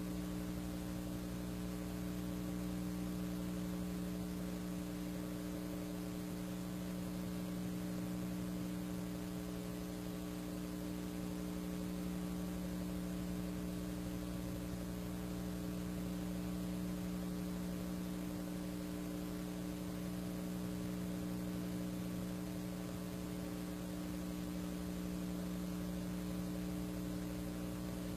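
Steady electrical mains hum with a faint hiss underneath, unchanging throughout; no live sound of the tractor is heard.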